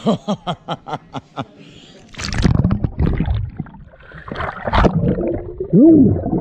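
Pool water splashing, sloshing and gurgling around a handheld GoPro at the surface as a swimmer ducks under. A quick run of short vocal sounds from him comes at the start, and a short yell near the end is the loudest moment.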